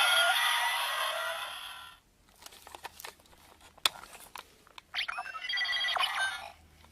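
Electronic sound effects from the Zyuoh Changer Final toy transformation device: a hissing effect fades out over the first two seconds, a few sharp plastic clicks follow, and about five seconds in a short electronic chime with steady tones and a falling glide plays.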